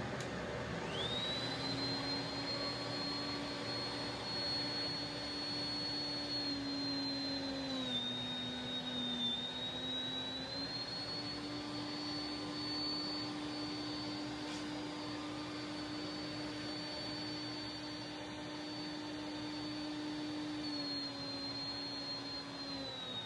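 Electric wood router spinning up about half a second in and then running with a high steady whine, its pitch dipping briefly a few times as it takes load cutting a T-slot in plywood.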